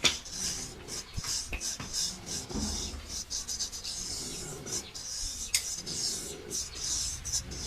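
A barber working close on a customer's head: a run of short, irregular scraping and rubbing strokes, with a sharp click at the start and another about five and a half seconds in.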